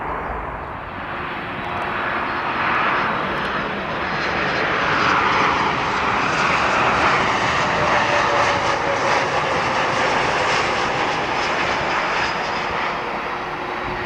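Boeing 737-900 jetliner's CFM56 turbofan engines roaring as the aircraft passes, swelling to a peak through the middle and easing near the end, with a faint whine gliding slowly downward.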